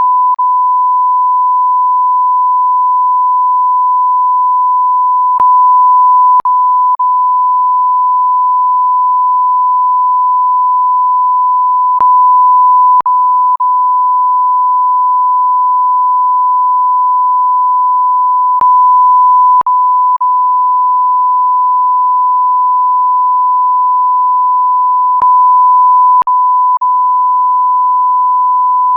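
Censor bleep: one unbroken, steady, high-pitched sine tone. About every six and a half seconds there are three small clicks, with the tone briefly a little louder between the first two.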